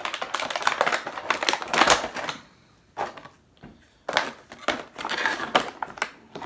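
Small plastic parts and packaging being handled: a quick, irregular run of clicks, taps and rustles that stops for about a second and a half partway through, then starts again.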